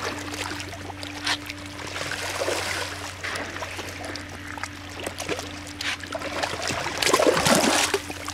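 Catfish feeding at the surface of a pond, making small splashes and water noise as they take floating feed pellets, with a louder burst of splashing about seven seconds in. A steady low hum runs underneath.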